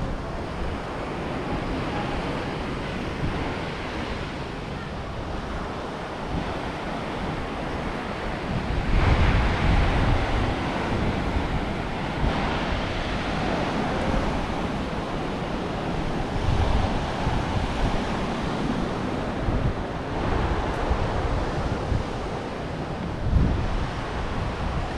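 Sea waves breaking and washing up on the shore in repeated swells, with wind buffeting the microphone.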